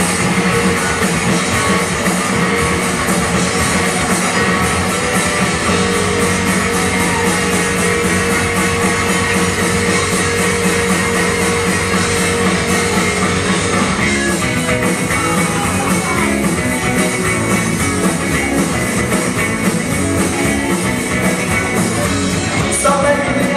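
Live rock band playing an instrumental passage on electric guitars and drum kit, loud and without vocals, the playing changing about halfway through.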